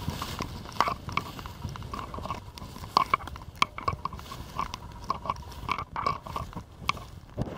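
Footsteps crunching and crackling through dry, matted dead vines and brush, with irregular snaps of brittle stems underfoot.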